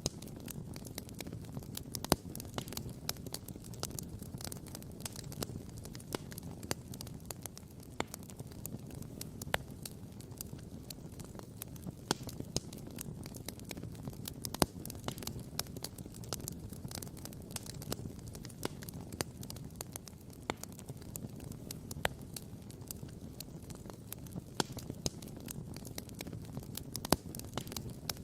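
Wood campfire crackling and popping, with many irregular sharp snaps over a steady low rumble.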